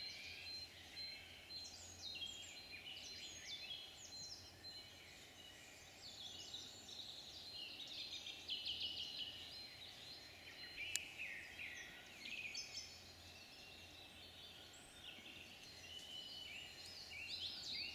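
Woodland songbirds singing, several at once, in faint overlapping trills and quick falling phrases. A single sharp click about eleven seconds in.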